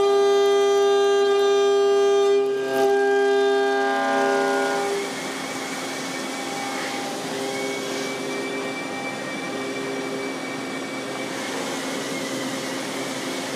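CNC milling machine's end mill cutting billet aluminum under flood coolant: a loud, steady, high-pitched cutting whine. About five seconds in it drops to a quieter hiss of spindle and coolant spray with fainter tones as the cut eases off.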